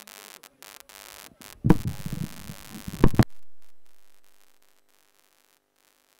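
Faint hiss, then a loud low thump followed by about a second and a half of low rumbling knocks, ending in a sharp knock; the sound then cuts out to near silence.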